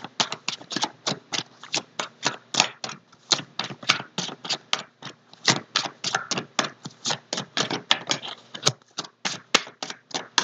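A tarot deck being shuffled by hand: a quick, even run of card clicks, about five or six a second.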